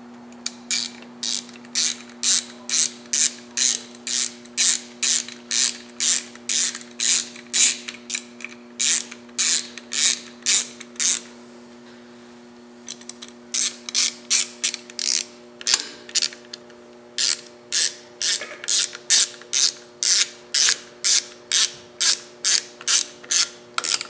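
Hand ratchet clicking in quick, even strokes, about two a second, as it runs in the small bolts of a motorcycle handlebar switch-housing cover. There is a pause of about two seconds midway, then the clicking resumes.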